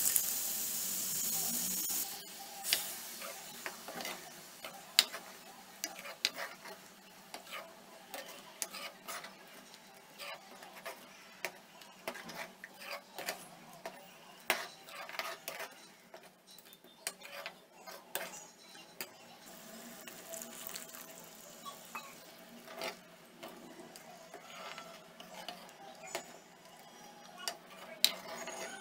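Steel ladle stirring a simmering tomato kurma in a steel kadai, with frequent clicks and scrapes of metal on the pan. A loud hiss fills the first two seconds as a milky liquid is poured into the hot curry.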